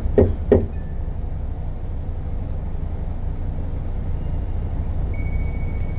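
Hanging metal pans clanking together twice near the start, over a steady low rumble.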